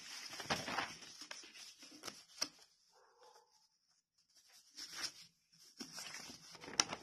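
Notebook pages rustling as they are handled and turned, in a few short spells, with a sharp click about two and a half seconds in and a louder one near the end.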